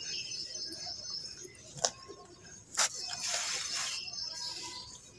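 Dry red dirt clods crumbled and broken apart by hand. There are two sharp cracks, about two and three seconds in, and a gritty crunching rustle of soil after the second one.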